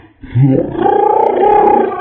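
A person's scream or yell slowed down, turned into a deep, drawn-out roar. It starts about a third of a second in, after a brief quiet, with a low rising pitch, and then holds.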